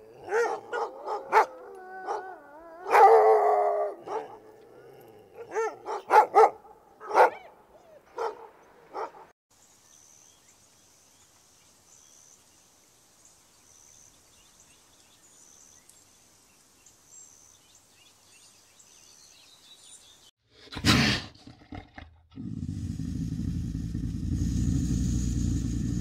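A dog barking and yipping in a quick run of short calls for the first nine seconds or so. Then comes a quiet stretch with a faint, steady high chirping, a single sharp noise, and a loud low rumble that starts a few seconds before the end and carries on.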